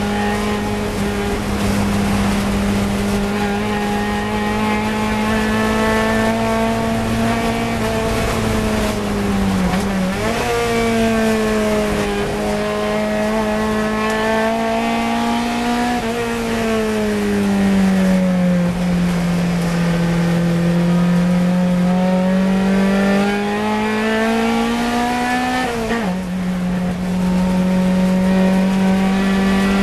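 A Fiat 124 Coupe race car's four-cylinder engine running hard at high revs, heard from inside the car. The note sags and jumps back up about ten seconds in, falls away for a slow corner, climbs steadily under acceleration, and drops sharply near the end as it shifts up.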